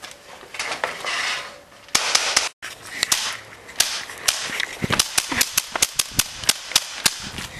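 Nail gun firing a long run of sharp snapping shots, unevenly spaced at roughly two to four a second, starting about two seconds in.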